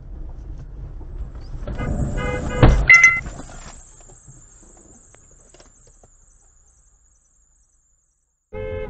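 Low vehicle rumble with a loud thump about two and a half seconds in, surrounded by short shrill cry-like sounds, then fading away to near silence.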